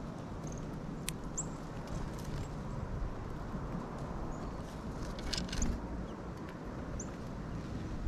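Gusty wind rumbling on the microphone, with a few short, high bird chirps and several light taps among them.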